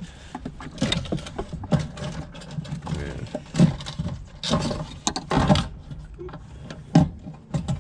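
A plastic fuel pump module being worked by hand into the fuel tank opening: irregular clicks, knocks and scraping of plastic against the tank's access hole as it is pushed down and seated.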